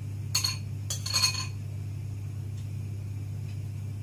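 A spoon clinking against a small bowl three times within the first second and a half, as a salad dressing is mixed, over a steady low hum.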